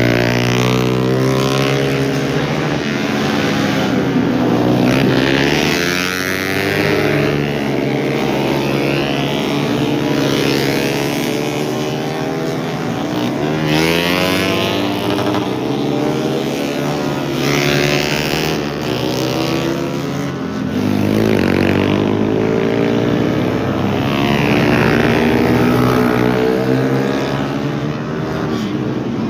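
Several racing motorcycles, a two-stroke Kawasaki Ninja among them, revving hard past one after another. The engine note falls and climbs again every few seconds as each bike shuts off and accelerates out of the bend.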